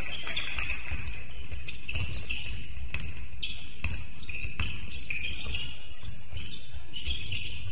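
Basketball bouncing on a hard gym court during play: a string of irregular thuds and sharp knocks in an echoing sports hall.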